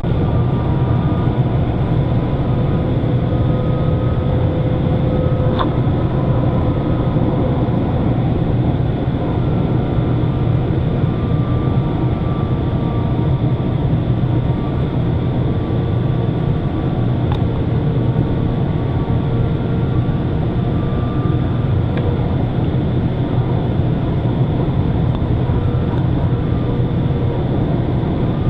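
Light rail train running: a steady low rumble with faint, slowly drifting whine tones above it and a few sharp clicks.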